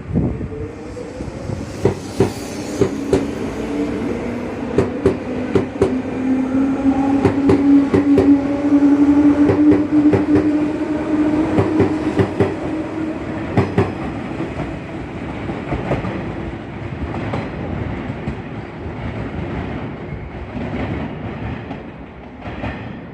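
Electric commuter train running through the station, its wheels clicking irregularly over rail joints and points, with a humming tone that rises slightly in pitch and is loudest about halfway through before fading.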